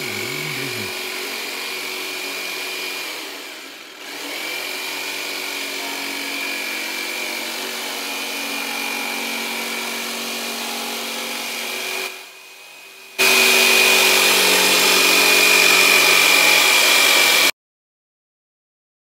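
Electric power tool running with a steady high whine while cutting wooden end caps from a maple 2x4. It runs in three stretches with brief breaks; the last stretch is louder and stops abruptly.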